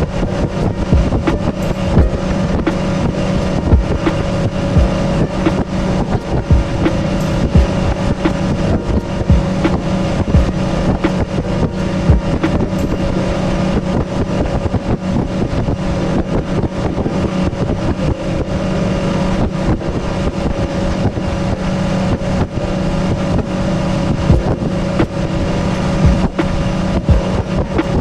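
Boat's outboard motor running at a steady speed under way, with frequent short thumps and wind on the microphone.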